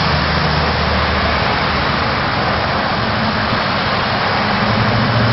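Street traffic: a steady rush of road noise with a vehicle engine humming low underneath.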